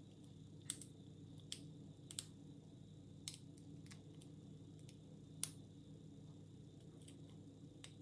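Faint, scattered clicks of a lock pick working the serrated and spool pins inside an American 1100 padlock, about half a dozen over several seconds, the loudest about five and a half seconds in.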